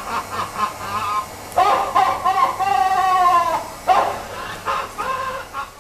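Recorded laughter from a laughing sailor automaton: a loud, high, cackling laugh in rising and falling hoots, with one long drawn-out laugh about two seconds in.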